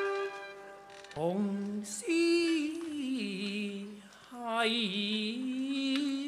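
Cantonese opera singing: a single voice sings two long, slow phrases of held, sliding notes with wide vibrato. The instrumental accompaniment fades out about a second in, just before the voice enters.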